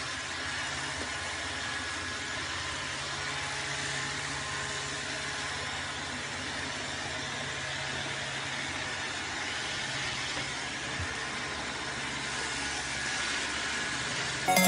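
Robot vacuum cleaner running with a dog riding on top, a steady whirring noise over a low hum.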